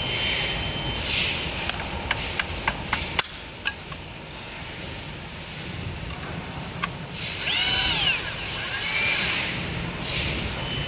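Power-tool and metal work: several sharp clicks and knocks in quick succession two to three seconds in, then a short whine that rises and falls in pitch near eight seconds in.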